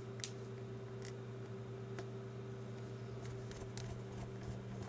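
A few faint, sharp clicks from a small screwdriver turning screws into the plastic back case of a GPS unit, over a steady low hum.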